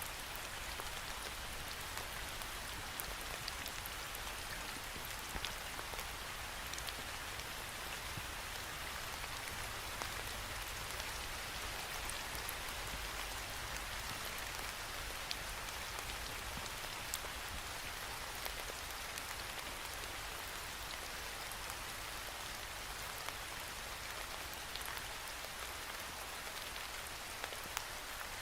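Steady rain falling against a window pane, an even hiss with scattered sharp drop ticks on the glass.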